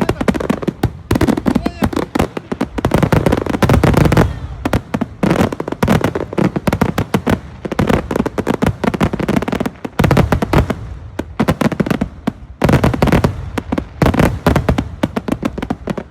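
Fireworks going off in dense, rapid volleys of bangs and crackles, with a few brief lulls between barrages.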